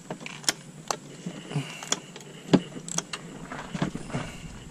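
Scattered metal clicks and knocks of a 65 mm cap-type oil filter wrench being worked on the oil filter of a 2005 Yamaha R6 to loosen it, coming at uneven intervals.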